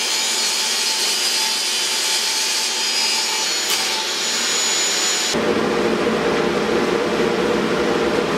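A power tool running steadily with a high whine, then about five seconds in it switches abruptly to a different, lower steady mechanical noise.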